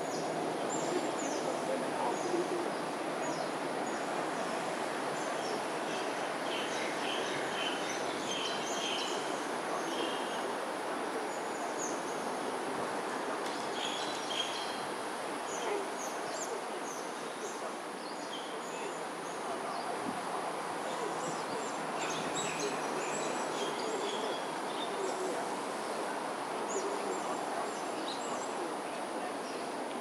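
Smooth-coated otters chirping and squeaking in short, high-pitched calls that come in scattered clusters, over a steady hum of background noise.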